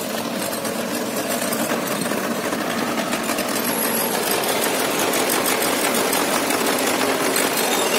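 Jeep engine idling steadily with a fast, even clatter.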